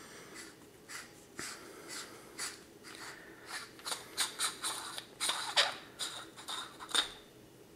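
JetBeam RRT-3 aluminium flashlight being unscrewed and opened by hand: a run of short scrapes and clicks from the threads and handling, closest together near the end, with the sharpest about seven seconds in.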